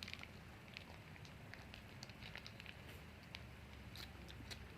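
Faint eating sounds: small irregular clicks and smacks from chewing, about a dozen scattered through, over a low room hum.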